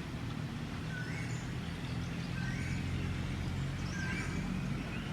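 Short, high bird chirps, some gliding upward, scattered every second or so over a steady low hum.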